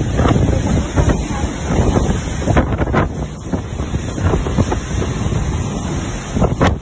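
Tropical-storm wind gusting hard against the microphone, rumbling and surging, over the steady hiss of heavy rain.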